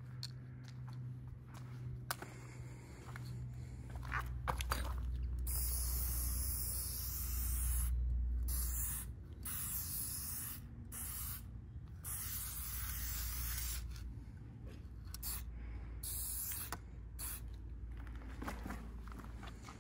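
Aerosol spray-paint can hissing as black paint is sprayed onto a wall, starting about five seconds in. It comes in a run of bursts of a second or so up to several seconds, with brief breaks between them.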